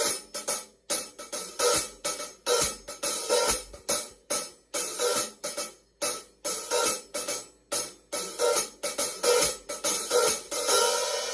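Paiste 2002 15-inch Sound Edge hi-hats played in a steady rhythm, about two to three strokes a second. Some strokes are cut off short, others ring on, with a longer ring near the end.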